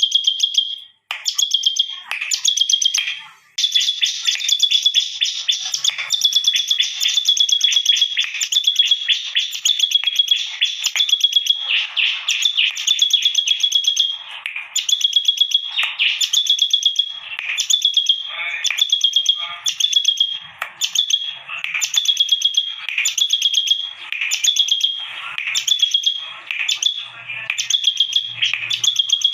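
Bar-winged prinia (ciblek) singing vigorously with high, rapid chattering notes. The song runs almost unbroken for the first several seconds, then breaks into short repeated phrases about once a second.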